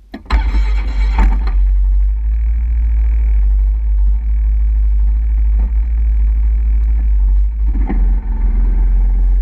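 A quad bike's engine running with a steady, heavy low rumble. It cuts in suddenly about a third of a second in, with a short louder noisy stretch over the first second.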